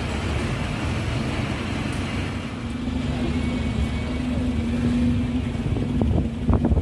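Wright Gemini 3 double-decker bus drawing up to the stop, its engine giving a steady low rumble. A hum comes in about a third of the way through and holds until near the end, with a few short bumps at the very end.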